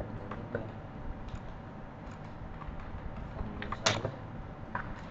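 Computer mouse clicks over a steady low hum: a few faint clicks, then a louder quick double click a little before four seconds in as a folder is opened, and one more click near the end.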